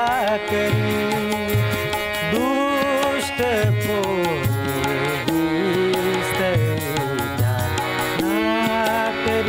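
Marathi devotional bhajan: a male voice sings drawn-out phrases with vibrato over harmonium, and a tabla keeps a steady beat.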